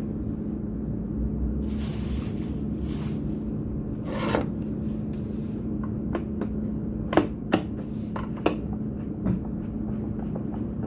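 Screws being driven by hand to fasten a new motor into a carpet machine: the screwdriver scrapes and rubs, with a few sharp metal clicks, over a steady low hum.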